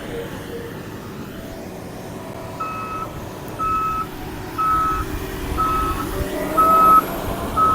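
Reversing alarm of a construction vehicle beeping about once a second, starting a few seconds in, over the running of heavy engine machinery.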